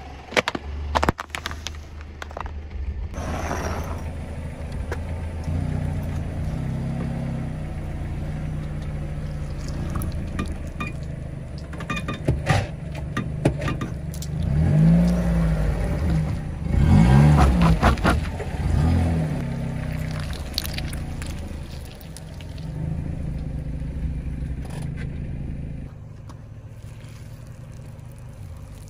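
Car engine running as its tyre rolls over and crushes objects on asphalt, with scraping and crackling; the revs rise and fall a few times in the middle, the loudest part, and the engine sound drops away near the end.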